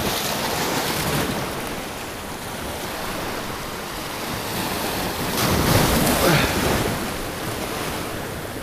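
Waves surging and breaking against the rocks of a granite jetty, as a steady wash of surf with wind on the microphone. A larger wave crashes between about five and six and a half seconds in.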